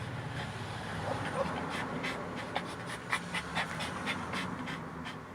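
Dog panting quickly and rhythmically, about four breaths a second, the anxious panting of a stressed dog.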